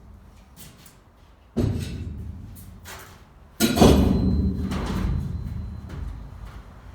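Two loud thumps about two seconds apart, each dying away over a second or more, with a few lighter knocks before and between them.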